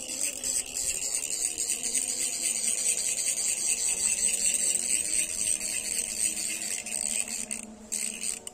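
A steady, high-pitched buzzing drone that dips briefly near the end.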